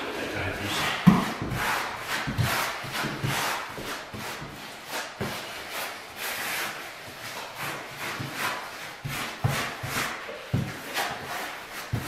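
Grout float scraping and rubbing over travertine floor tiles in short, repeated strokes, packing sanded grout into the joints, with a few dull knocks in between.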